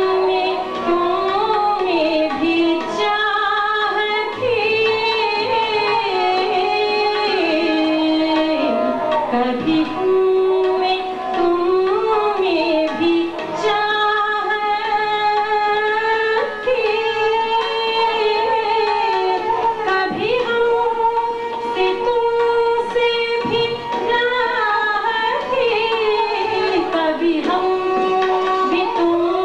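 A woman singing a ghazal with harmonium, accompanied by guitar and other instruments, in continuous melodic phrases with sliding ornaments.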